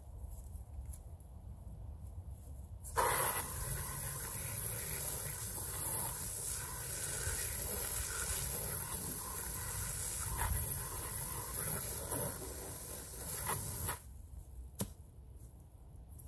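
Garden hose spray nozzle spraying water onto a yurt window panel to rinse it: a steady hiss that starts suddenly about three seconds in and cuts off about eleven seconds later. A single click follows shortly after.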